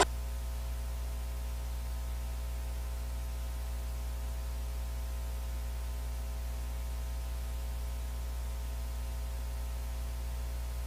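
Steady electrical mains hum with a faint hiss: a strong low drone and several fixed tones, unchanging throughout.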